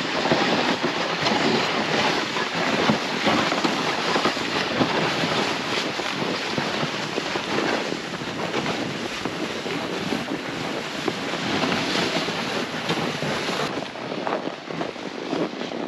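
A loaded plastic ice-fishing sled scraping and hissing as it is dragged over snow, with footsteps crunching and wind buffeting the microphone.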